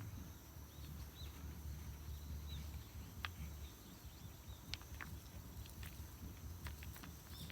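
Quiet outdoor ambience: small birds chirping faintly in short calls over a steady low rumble, with a few sharp clicks or snaps about three, five and five and a half seconds in.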